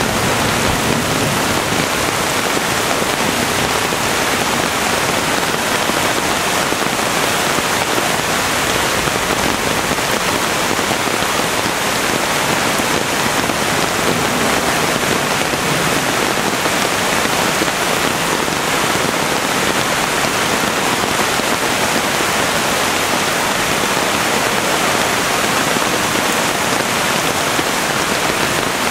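Heavy rain hitting an umbrella so hard it comes through, over the rush of a flooded creek running in rapids. A loud, steady, even noise throughout.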